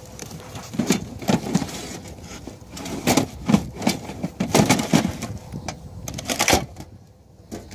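Metal filing-cabinet drawer stuffed with papers being handled and pushed shut: a run of irregular knocks, rattles and paper rustles, the loudest knock about six and a half seconds in.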